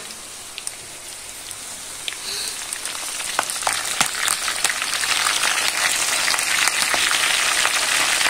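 Chicken pakodi deep-frying in a kadai of hot oil: a steady crackling sizzle full of small pops. It grows clearly louder and more spattery about halfway through, as green chillies and curry leaves go into the hot oil.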